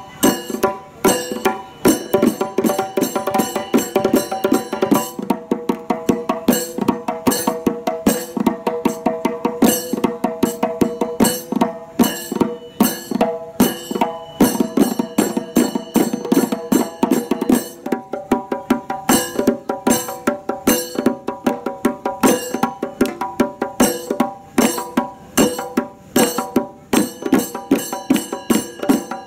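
Kumbazha melam, a Kerala traditional percussion ensemble: several finger-played hand drums struck in a fast, dense, unbroken rhythm.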